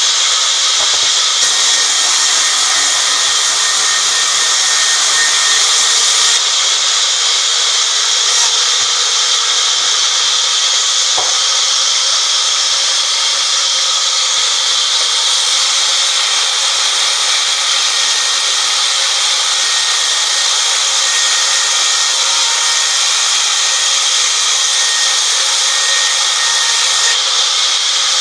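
Sawmill band saw running and ripping a teak log into boards: a steady, loud, high sawing hiss.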